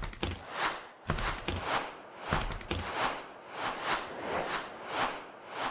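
Intro-animation sound effects: a rhythmic run of whooshing swishes, about two a second, with a few low thumps in the first half.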